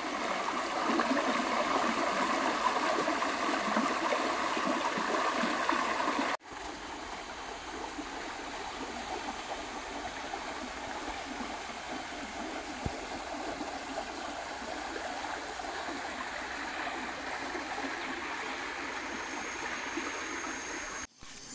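Shallow forest stream running over rocks. It is louder and more gurgling for the first six seconds, then an abrupt cut switches to a softer, steadier flow.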